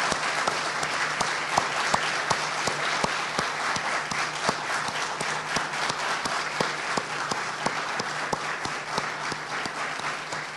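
A standing ovation: a crowd clapping steadily, many hands at once, easing off slightly near the end.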